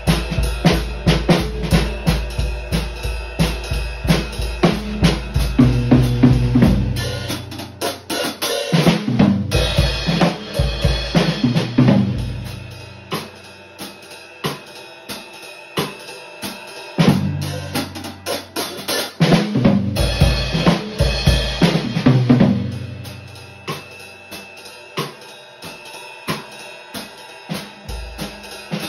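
Gretsch drum kit being played: steady strokes with the bass drum, then two louder passages full of low tom and bass drum hits with cymbals, and lighter playing in between and near the end.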